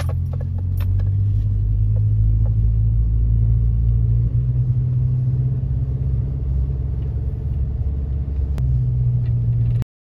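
Car engine and road rumble heard from inside the cabin while driving uphill on a narrow lane, a loud low drone that shifts in pitch about four seconds in and again near the end. A few light clicks or rattles sound in the first second, and one sharp click near the end.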